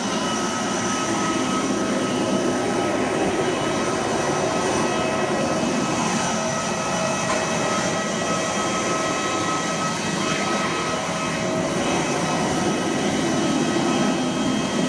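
Steady jet airliner noise from an Airbus A320's CFM56 engines: an even rushing hiss with a thin, steady whine on top.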